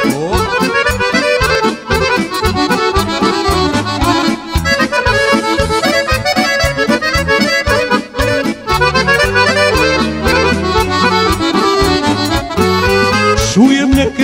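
Live Serbian folk band playing an instrumental introduction: accordion carrying the melody over keyboards and a drum kit keeping a steady beat.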